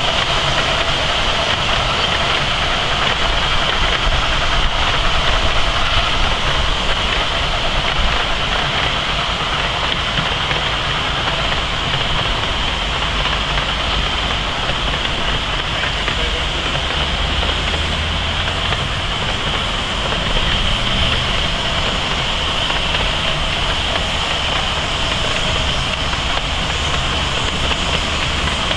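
A 7¼-inch gauge miniature steam train, a live-steam K36 locomotive hauling a long rake of ride-on carriages up a steep grade, running steadily: wheels rolling on the rails with a continuous hiss.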